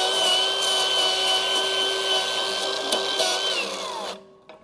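Milwaukee 2886 M18 FUEL flathead cordless angle grinder running at a steady high whine as its flap disc grinds weld spatter off steel. About three seconds in the trigger is let go and the motor winds down in falling pitch, stopping within about a second under its Rapid Stop brake.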